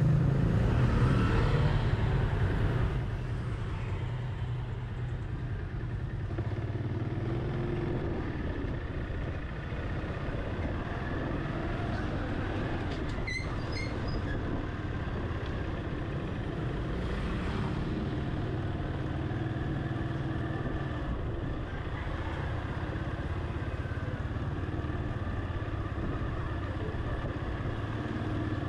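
Motorcycles riding past close by, loudest in the first few seconds, then a steady low hum of motorcycle and car engines along a narrow city street.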